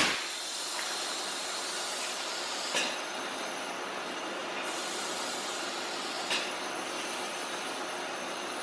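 Compressed air hissing steadily through a hand-held electrostatic powder coating gun as it sprays powder onto hanging metal parts, with two brief snaps about three and six seconds in. The sprayer reports hearing the electricity sparking, which he puts down to the parts not being grounded properly.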